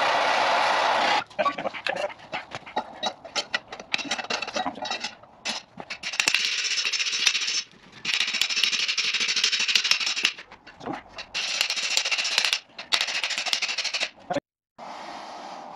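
Gas torch hissing steadily in several spells, heating a seized thrust nut on a Bristol Hercules reduction gear, each spell cutting off abruptly. Between the spells comes a run of sharp metallic clicks and knocks.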